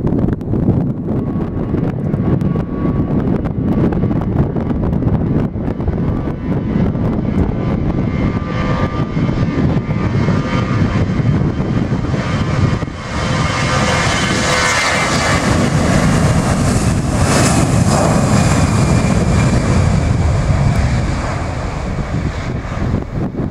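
Airliner engines passing: a whine and rush that builds, peaks in the middle, then eases off. Gusty wind buffets the microphone throughout.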